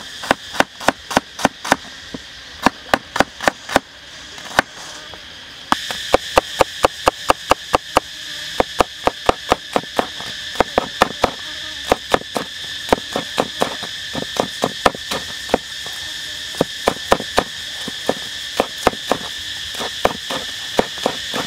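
Cleaver chopping shallots and then green onions on a wooden cutting board: a long run of quick, sharp knocks, about three to five a second. Steady insect trilling in the background, louder from about six seconds in.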